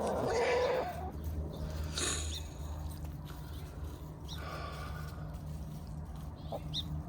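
Domestic hens clucking now and then, with a few short calls over a steady low hum.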